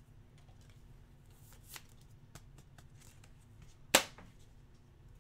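Trading cards being handled, with faint rustles as the cards slide against each other and one sharp click about four seconds in.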